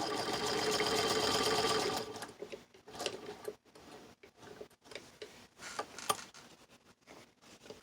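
1926 Singer 128 hand-crank sewing machine running steadily as it stitches, stopping about two seconds in. Scattered light clicks and knocks follow.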